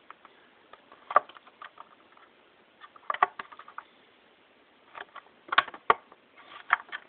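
Plastic blister packaging of a die-cast toy car crackling and clicking as it is handled and turned over. There are a few separate sharp crackles, with the loudest cluster about five and a half to six seconds in.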